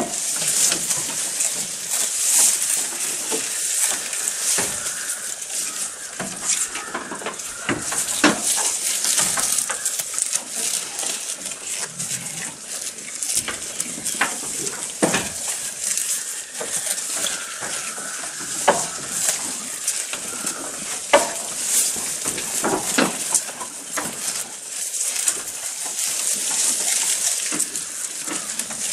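Goats eating fresh green grass leaves: many short crunching bites and tearing of the stems over a continuous rustle of the leaves being pulled about.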